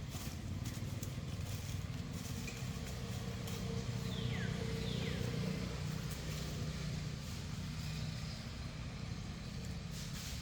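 A low engine drone that swells and then eases off over several seconds, with two short, high, falling squeaks near the middle.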